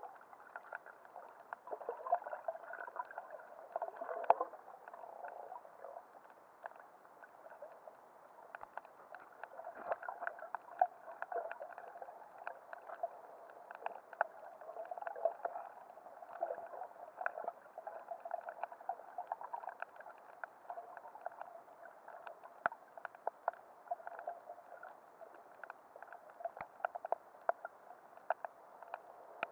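Muffled underwater sea ambience: a steady watery hiss peppered with many small, irregular clicks and crackles.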